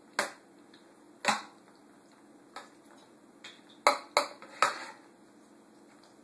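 A utensil clinking against a baking dish while cooked pasta is stirred through meat sauce and ricotta. About six sharp clinks come at uneven intervals, three of them close together about four seconds in.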